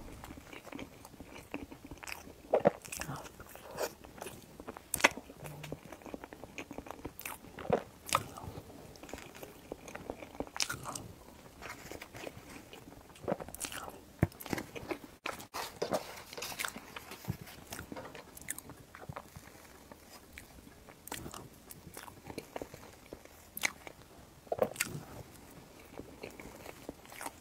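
Close-miked eating sounds of a person eating soft, layered crêpe cake: chewing, lip smacks and wet mouth clicks at irregular intervals, with now and then a tap of a metal spoon.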